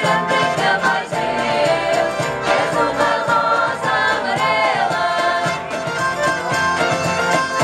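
Live Portuguese folk music: several women singing together, accompanied by accordion, bass guitar and violin.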